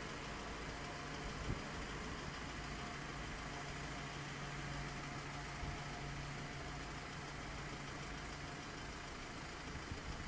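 Steady low electrical and mechanical hum of an Alstom Citadis tram creeping past at walking pace, with a steady low tone under it.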